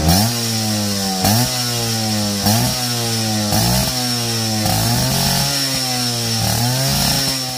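Suzuki Tornado GS two-stroke motorcycle engine revving through a stainless steel racing exhaust. It gives repeated short throttle blips, about one a second, each rising sharply in pitch and falling back to a fast idle.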